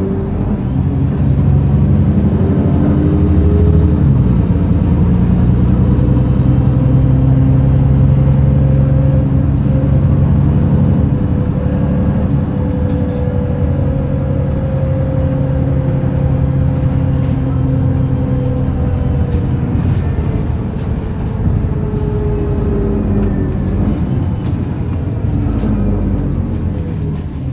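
VDL DB300 double-decker bus's diesel engine running under load with a horrid grumbling noise. Its pitch rises over the first few seconds, holds steady, drops about twenty seconds in and picks up again, with light rattles near the end.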